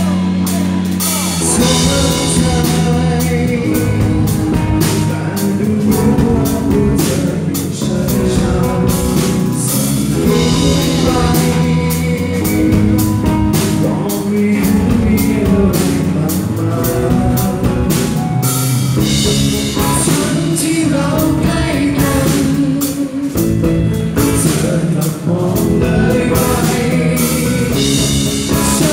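Live rock band performance: a singer sings over acoustic guitar, electric guitar and drum kit.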